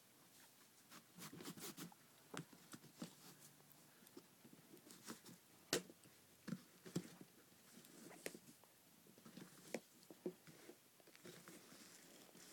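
Faint handling sounds of new sneakers being turned over in the hands: scattered soft taps, clicks and rustles at irregular moments.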